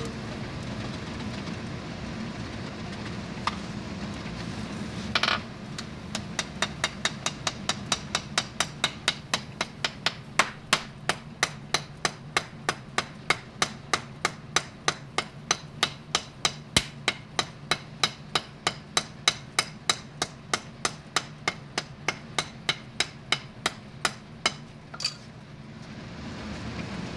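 Blacksmith's hand hammer striking red-hot knife steel on an anvil, forge-welding the two steels of the laminated blade. A single blow and a louder clank come first, then a long, even run of about two and a half blows a second that stops near the end. Under it runs the forge's steady low rumble.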